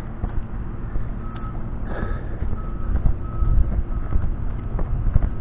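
Backup alarm of a construction vehicle beeping, a short single-pitch beep about every 0.7 seconds, over a steady low engine rumble; the beeping starts about a second in and stops near the end, with a brief clatter about two seconds in.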